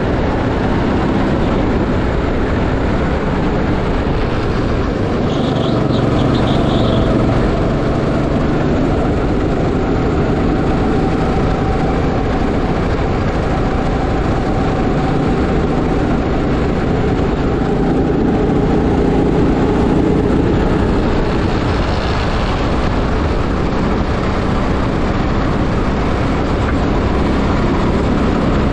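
Go-kart engine running steadily under throttle during a lap, its note shifting up and down with speed.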